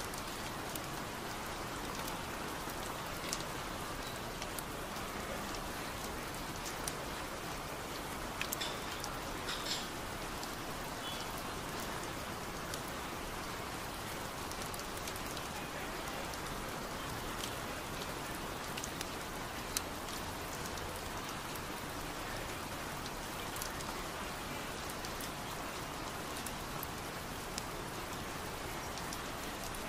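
Steady rain, with many separate raindrops ticking sharply over an even patter.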